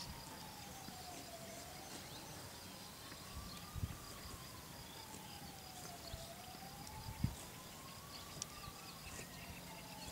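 Faint, distant siren wailing, its pitch slowly rising and falling about every five seconds, with a couple of short thumps.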